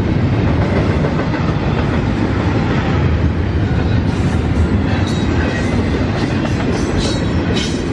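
Railroad cars of a passing train rolling by with a steady rumble and clickety-clack of wheels over the rail. From about halfway through, short sharp high-pitched streaks sound over the rumble.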